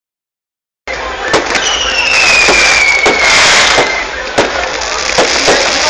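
Fireworks going off, starting abruptly about a second in: sharp bangs and crackling, with a whistle that falls slowly in pitch over about two seconds.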